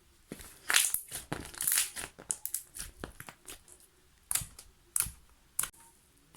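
Slime being squeezed and pressed by hand, giving sharp crackling pops and squelches. These come thick and fast for the first three seconds or so, then as single pops about four, five and five and a half seconds in.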